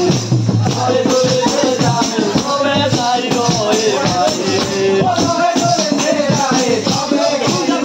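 Himachali Pahari folk music for Nati dancing: voices singing a melody over a steady, rattling percussion beat.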